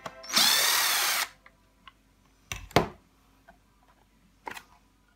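A removed plastic refrigerator ice maker module being handled: a loud rasping whirr lasting about a second near the start, then a few sharp clicks and knocks of plastic parts.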